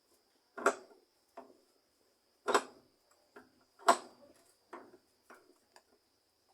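Irregular sharp knocks and clicks of tools and metal parts being handled while a washing machine's drive mechanism is being taken apart, three of them louder than the rest.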